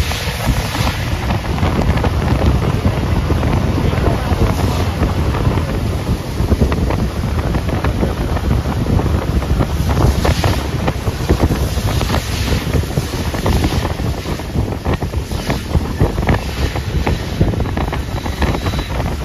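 Wind buffeting the microphone from a moving car, over a steady low rumble of the ride.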